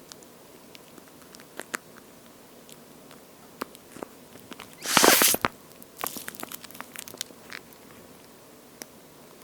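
A water-feel squishy toy shaped like a slice of toast being squeezed by hand: scattered small clicks and crackles, a loud squishing rush about five seconds in, then a run of crackles.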